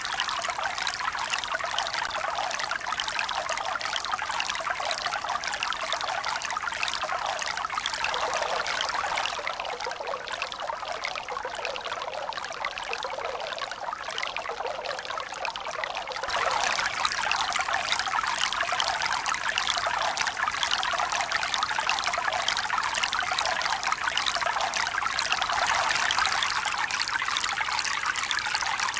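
Steady running water, an even hiss with no rise and fall of waves. It turns duller for a few seconds in the middle, then jumps abruptly louder and brighter about sixteen seconds in.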